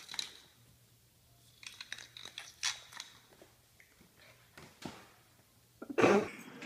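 A puppy's claws clicking and scrabbling on a tile floor as it plays with a round hairbrush, with light knocks as the brush is pushed across the tiles. A louder noise comes about six seconds in.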